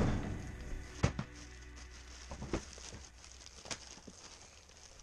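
Plastic packaging rustling as a boat seat in its bag is handled, with a few scattered light knocks.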